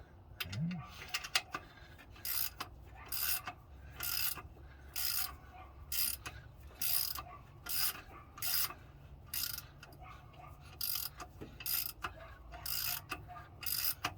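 Ratchet wrench backing out a long bolt, its pawl clicking in a short rasping burst on each back-swing, about once a second.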